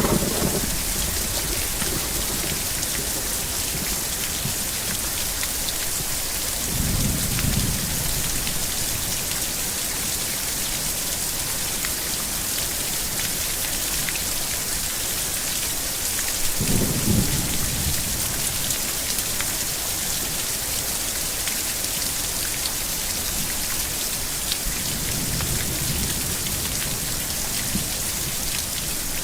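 Steady heavy rain during a thunderstorm, with low rumbles of thunder swelling three times, about 7, 17 and 25 seconds in.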